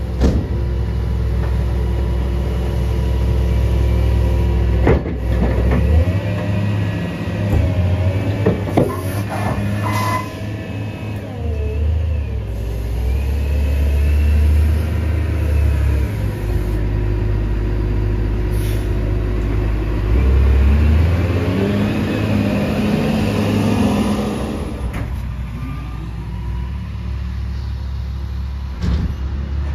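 Wheel loader's diesel engine revving up and down while its hydraulics work the leaf bucket, with a few sharp metal clanks from the bucket.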